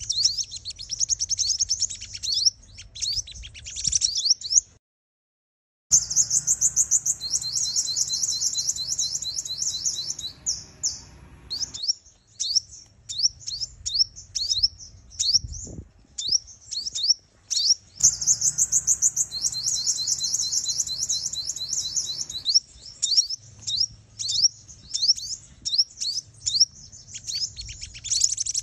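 Sunbird calls, a female lure recording: fast, high twittering chirps in dense trilled runs. The recording cuts out completely for about a second near five seconds in, and similar passages repeat, as in a looped lure track.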